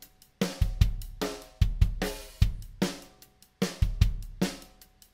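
EZDrummer 3 software drum kit playing back a drum pattern: regular kick drum thumps with snare and cymbal hits in a steady beat.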